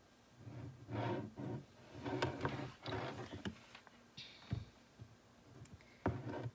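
A low, muffled voice in the background, followed by a knock and a sharp click as a plastic dental typodont and a hand scaling instrument are handled and set down.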